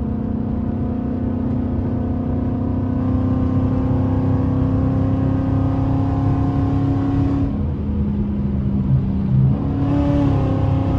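Ford Mustang GT 5.0 V8 heard from inside the cabin, running hard under acceleration with its pitch climbing steadily. The pitch drops at a gear change about seven and a half seconds in, then rises again near the end.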